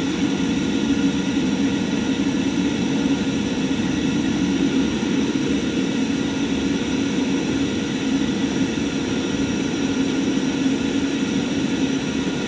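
Gas forge burner running with a steady rushing noise and a low hum, heating a knife blade to hardening temperature.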